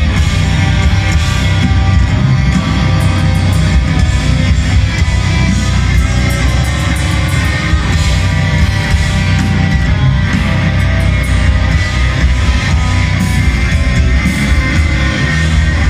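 Black metal band playing live at full volume: distorted electric guitars, bass and drums in a dense, unbroken wall of sound.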